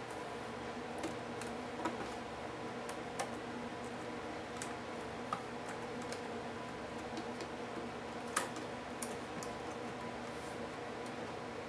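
Scattered small clicks and taps from tools and plastic parts being handled while a Lenovo IdeaPad U460 laptop is taken apart, over a steady background hum; the sharpest click comes about two-thirds of the way through.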